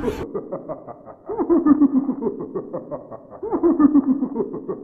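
A muffled, low-fidelity sound clip: a falling hoot-like tone, heard twice about two seconds apart, over fast crackly ticking. It is the 'horrible sound' that has just been asked about.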